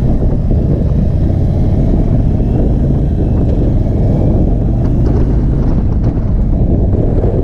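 Indian Chief Bobber's V-twin engine running as the motorcycle pulls away and rides along, with a steady rumble of wind on the microphone.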